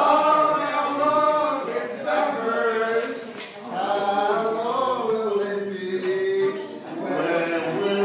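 Men singing together without accompaniment, a chant-like melody in phrases with a long held note past the middle.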